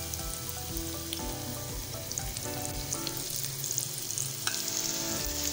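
Gram-flour pakoras deep-frying in hot oil: a steady bubbling sizzle with fine crackles.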